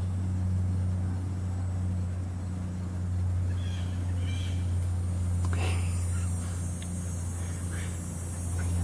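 A steady low mechanical hum, with a few faint short chirps and light clicks over it around the middle.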